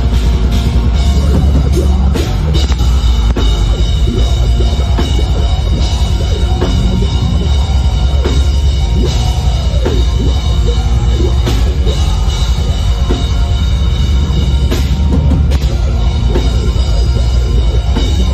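Metal band playing live and loud: distorted guitars, bass and a pounding drum kit with bass drum, and the vocalist singing into the microphone over them.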